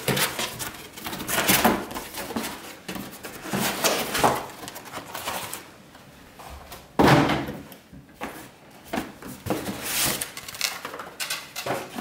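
Cardboard box being opened by hand: flaps and packaging rustling and scraping in irregular bursts, with a louder knock about seven seconds in.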